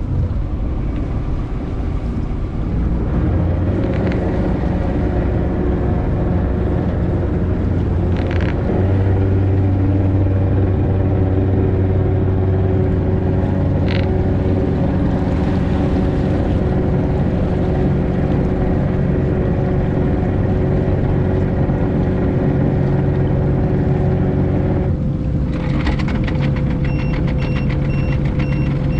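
Boat engine running with a steady rumble as the grounded boat tries to power off a sandbar, with a few brief clicks. About 25 seconds in the engine note drops to a lower, steadier one, and short evenly spaced beeps follow near the end.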